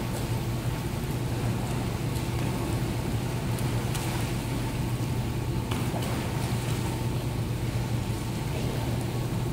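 Swimmers splashing through freestyle laps in an indoor pool, over a steady low hum.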